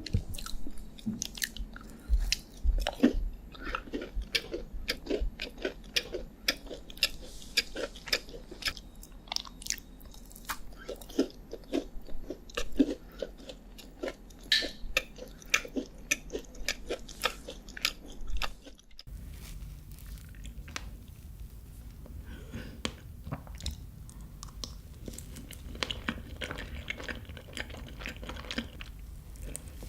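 Close-miked chewing and biting of chocolate desserts: a busy run of sharp, crisp clicks and crunches. About two-thirds of the way through it cuts to another recording with softer, sparser chewing over a low steady hum.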